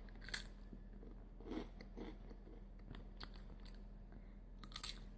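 A Space Raiders crisp being bitten and chewed: a sharp crunch about a third of a second in, then faint scattered crunching and a couple of louder crunches near the end.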